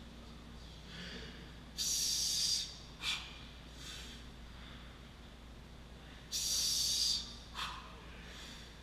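A man breathing hard under a 225 lb barbell between back squat reps: two long forceful exhales, about two and six seconds in, each followed shortly by a short sharp breath.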